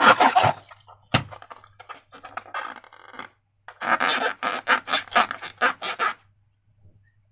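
Wet, sticky crackling and squelching of slime being squeezed and worked, in clusters of rapid little pops, with a sharp click about a second in.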